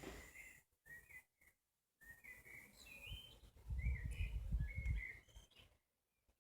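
A string of short, high whistled notes stepping up and down in pitch, with a low rumble on the microphone in the middle.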